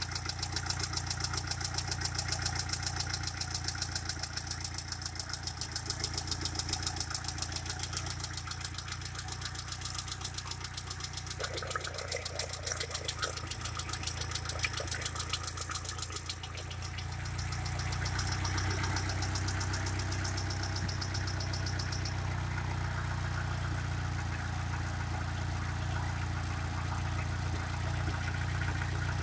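Mitsubishi 1.8 GDI 4G93 inline-four engine idling, with a regular sharp ticking. About two-thirds of the way through, the ticking fades and the running grows a little louder and smoother.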